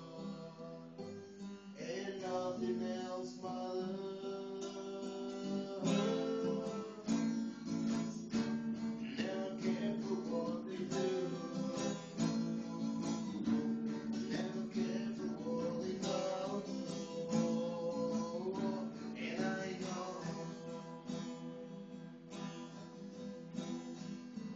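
Acoustic guitar strumming chords, with a voice singing a melody over it at times.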